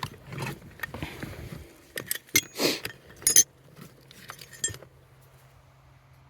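Metal parts being handled: a series of sharp clinks and knocks, a couple of them ringing briefly, bunched into the first five seconds or so.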